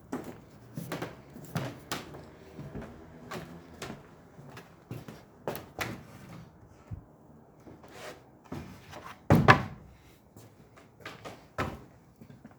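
Irregular knocks and clunks, a couple every second or so, the loudest a pair about nine and a half seconds in.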